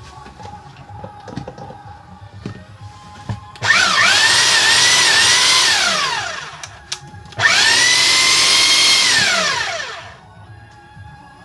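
Hilti TE 76 rotary hammer's electric motor switched on twice, each time coming up to speed with a steady whine for two or three seconds, then winding down with falling pitch: a test run of the reassembled tool.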